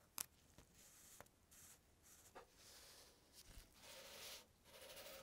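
Faint rustling and rubbing of nitrile-gloved fingers smoothing a transfer sticker onto a wooden baseball bat, in several short strokes, with a sharp tick about a quarter second in.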